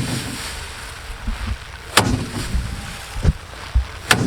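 Bundles of harvested rice stalks beaten hard against a drum to thresh out the grain: two loud strikes about two seconds apart, with lighter knocks between them.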